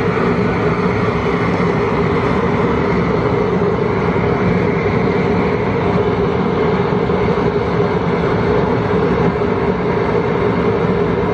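Gas burner of an outdoor boil cooker running steadily under a pot of boiling water, a loud, unbroken rushing noise with a steady low hum in it.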